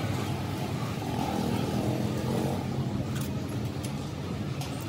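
A motor vehicle engine running steadily, its note swelling and rising a little in the middle.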